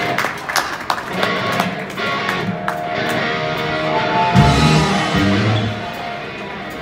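Live rock band playing: amplified electric guitar over drums, with heavier low notes coming in about four seconds in.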